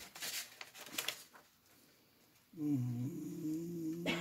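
Sheets of a printed manual rustling as pages are handled and turned, then a low, drawn-out hum in a man's voice for about two seconds near the end, with a sharp click just before it stops.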